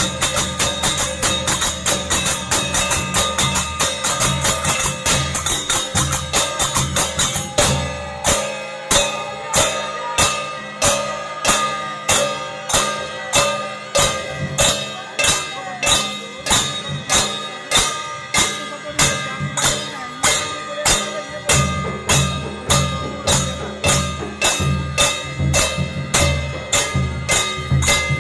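Percussion music with cymbal-like strikes over steady held tones. For the first eight seconds the beat is fast and dense with a deep low drum part. It then thins to even strikes about twice a second, and the deep drum part comes back near the end.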